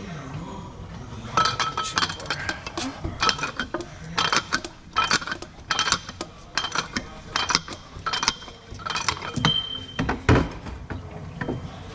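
Metal clinking and clicking of a ratchet and 36 mm socket on the DD15 diesel filter housing as the tight filter is worked loose, in irregular bursts.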